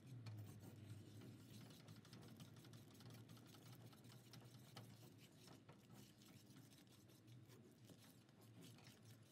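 Faint, rapid scraping and ticking of a wire whisk stirring flour into hot sugar syrup in a stainless-steel pot, thinning out toward the end, over a faint low hum.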